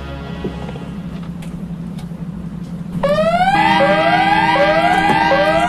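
Car burglar alarm going off about three seconds in: a loud siren that sweeps rising in pitch over and over, about one sweep every three-quarters of a second. Before it, a low steady hum.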